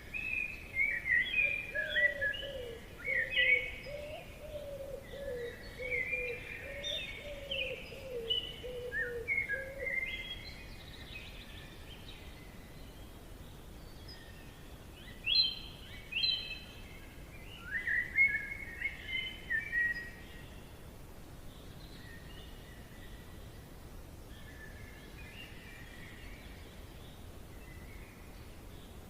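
Forest birds singing: bursts of quick chirping song, busiest in the first ten seconds and again about fifteen to twenty seconds in, fainter after that, over a steady faint background hiss. A lower-pitched warbling call runs alongside the chirps through the first ten seconds.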